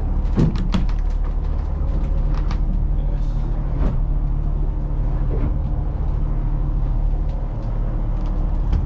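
Steady low drone of the yacht's machinery, heard inside a cabin while under way. Sharp clicks and knocks from a cabin door's handle and latch being worked come about half a second in, again near four seconds, and at the very end.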